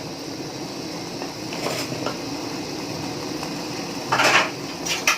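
Metal utensil clinking and scraping against a pan of cherries heating in sugar syrup, over a steady low hum; a few light clicks, then a louder clattering scrape about four seconds in and a sharp click just before the end.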